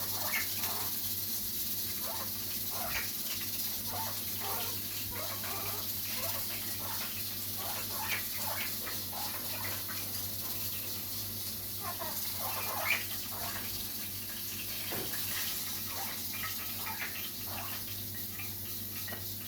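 Chicken frying in a pot of hot oil: a steady sizzle with scattered small pops and crackles.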